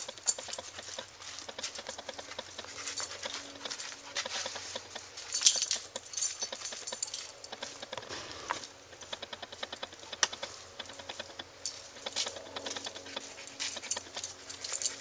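Metal leash and collar hardware jingling and clinking as a Rottweiler walks on a leash, with a louder clink about five and a half seconds in.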